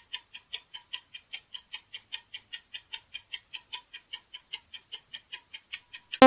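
Clock-ticking countdown sound effect: steady, even ticks, about four a second, running through the answer time. Right at the end, a loud stepped-chime sound effect cuts in.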